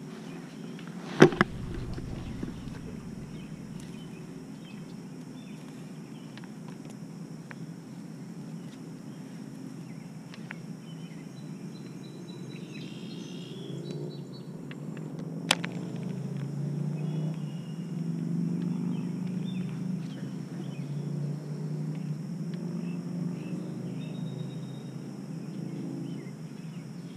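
Outdoor pond-side ambience: a steady low hum, somewhat louder in the second half, with faint high chirps near the middle. A sharp click sounds about a second in and another just past the middle.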